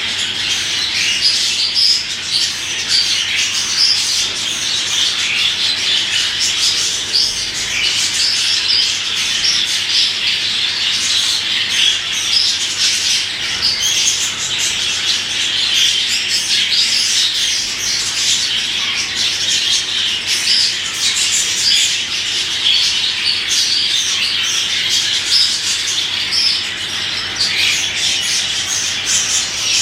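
Budgerigar chattering continuously, a dense run of warbles and squawks with no pauses.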